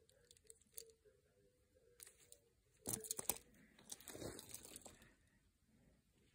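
Mostly near silence, broken by faint handling noise of small plastic push-along toys being put down and picked up: a few clicks, then short rustling and knocking about three seconds in and again around four to five seconds in.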